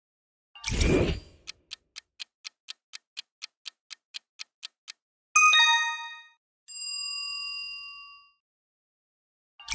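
Quiz-timer sound effects: a short swoosh, then a clock ticking about four times a second for some four seconds, ending in a bright bell ding, followed by a softer held chime. The swoosh and ticking start again at the very end.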